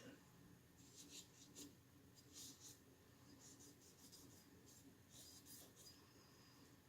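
Faint, irregular scratchy scrubbing strokes of cleaning work on the parts of a stripped 1911 pistol, over a low steady hum.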